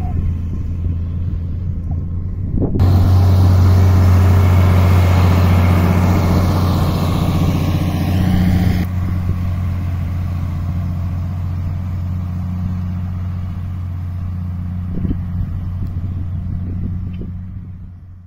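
New Holland T8050 tractor's diesel engine running steadily under load while pulling a disc harrow through stubble: a constant low drone. About three seconds in, a louder rushing noise joins it; it cuts off abruptly around nine seconds in, and the sound fades out at the very end.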